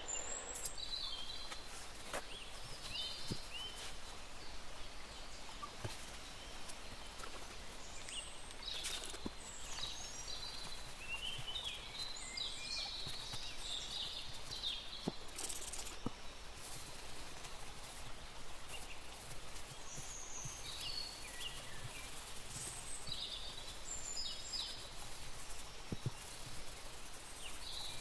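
Small birds chirping and calling on and off over a steady hiss, with a few faint clicks.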